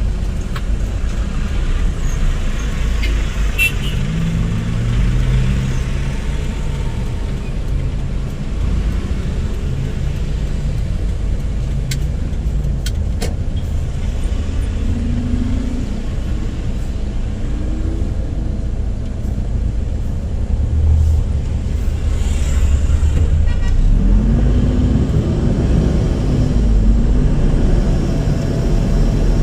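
Car being driven on a road test: steady engine and road rumble, with the engine pitch rising and dropping several times as it accelerates and shifts.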